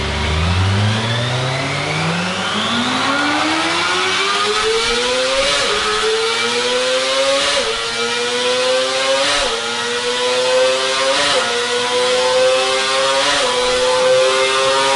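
Kawasaki ZX-25R's 250 cc inline-four engine revving up hard under acceleration, its pitch climbing high. It then shifts up five times, about every two seconds, with a short dip in pitch at each change before climbing again.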